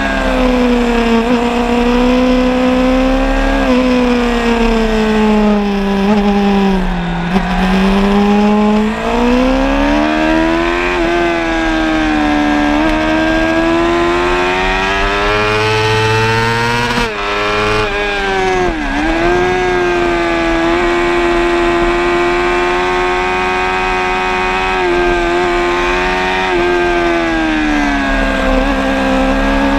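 Suzuki GSX-R 750's inline-four engine heard from onboard at racing speed. The revs rise and fall repeatedly, dropping deeply about seven seconds in and again a little before twenty seconds, with quick breaks in the note just before the second drop.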